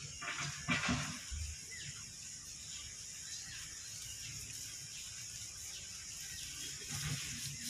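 A man eating rice and egg masala with his fingers from a plate: a few brief clicks and rustles about a second in and again near the end, over a steady high hiss of outdoor background.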